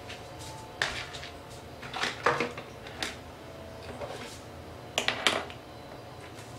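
Clicks and clatter of small hard makeup containers and tools being picked up and set down on a bathroom counter, in several short bursts, the loudest about three-quarters of the way through.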